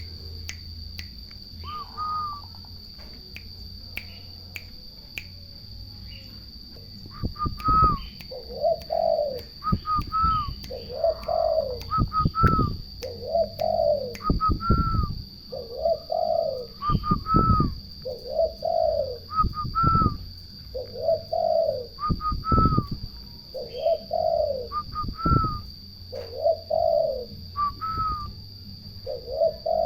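Turtle doves cooing in a repeating two-note phrase, a higher note then a lower one, about every two and a half seconds, starting a few seconds in.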